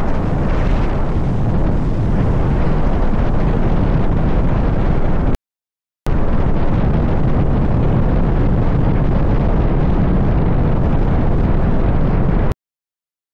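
Heavy wind buffeting on a microphone worn inside a rider's jacket at highway speed on an electric motorcycle, a dense low rumble. It cuts off abruptly about five seconds in, resumes half a second later, and cuts off again near the end.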